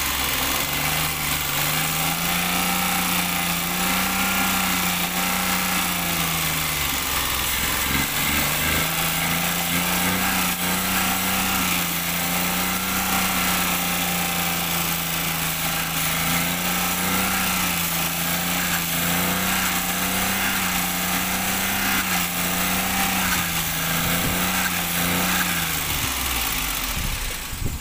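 Maruti Alto 800's three-cylinder petrol engine running roughly with a misfire, its note rising and falling unevenly as the idle hunts. It cuts off suddenly near the end.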